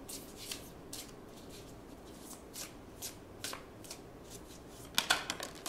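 A deck of oracle message cards being shuffled by hand: short, irregular papery flicks, with a louder flurry of them near the end.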